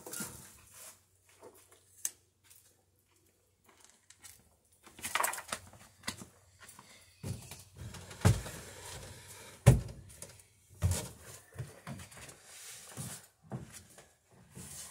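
Scattered light knocks and rustles, then close handling noise as the camera is picked up and carried: rustling cloth and several heavy thumps, the loudest about ten seconds in.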